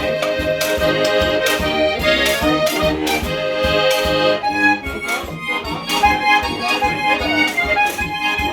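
Accordion playing traditional Alpine folk music live, chords and melody moving in a steady rhythm with clear beats.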